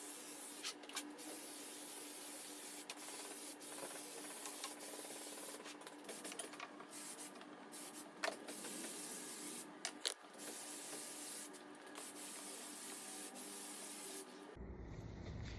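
Contact adhesive being sprayed: a steady hiss, cut by a few brief breaks where the spray stops, with the odd click.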